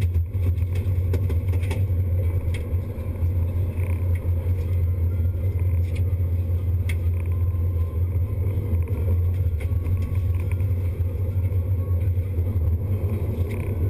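A sportfishing boat's engines run with a steady low drone. A few faint clicks are heard over it.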